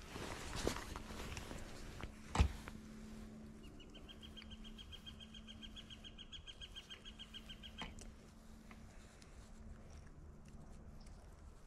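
Handling noise as a caught white bass is lifted and unhooked, with one sharp knock about two seconds in. A bird's rapid trill, about seven notes a second, starts about four seconds in and lasts about four seconds.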